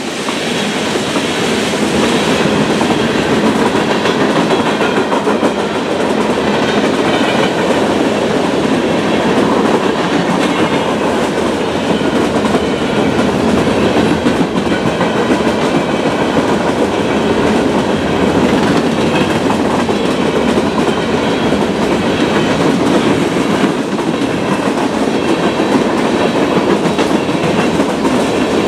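CSX freight train rolling past a grade crossing: a steady, loud run of tank cars, covered hoppers and gondolas, their steel wheels running on the rails.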